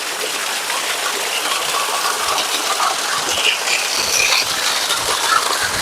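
Waterfall: water pouring and splashing over rocks in a steady rushing hiss.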